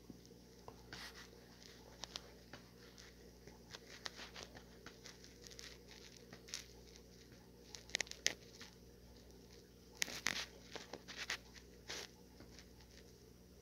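Faint crinkling, tearing and small clicks of packaging being handled, with brief louder bursts of rustling about eight and ten seconds in.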